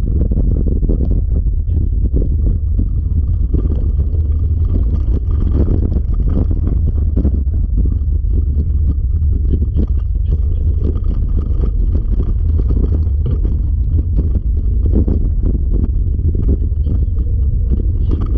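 Steady, loud rumble of a wheeled dryland dog rig rolling over a dirt trail, mixed with wind buffeting the microphone.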